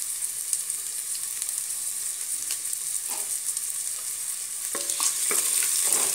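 Onion wedges sizzling in hot ghee in a pressure cooker, a steady frying hiss. Near the end a ladle stirs them, scraping against the pot a few times.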